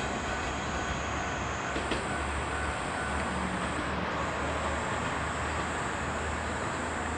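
Diesel railcar train running steadily along the line as it pulls away, a continuous low engine and wheel rumble.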